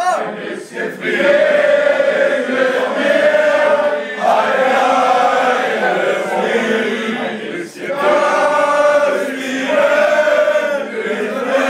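A group of men singing together in long held notes, like a chant, in phrases that break off about every three to four seconds.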